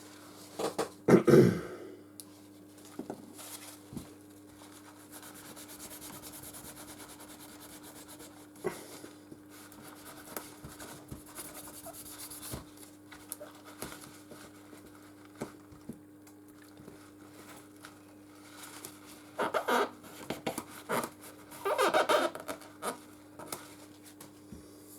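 A cloth wiping over a smartphone and the phone being handled on a workbench: scattered rubbing and small knocks, louder about a second in and again near the end, over a steady low electrical hum.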